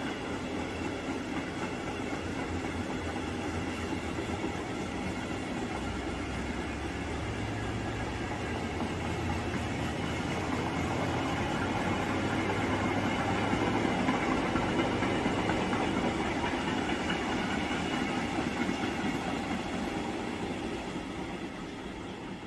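Freight train wagons rolling past on the rails: a steady rumble of wheels on track. It grows louder around the middle and fades near the end as the last wagons go by.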